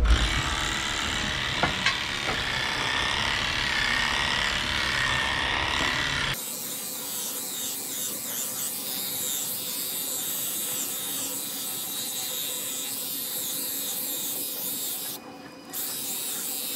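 Heininger Xplorer cordless cattle clipper buzzing steadily as it shears a cow's winter coat, cutting out briefly near the end.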